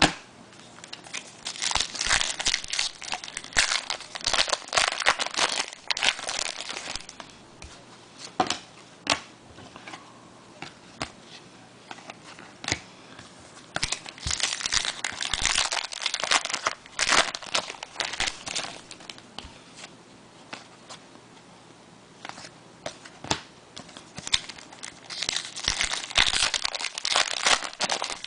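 Trading card pack wrappers being torn open and crumpled, in three spells of dense crinkling and tearing, with quieter gaps of a few light clicks as the cards are handled.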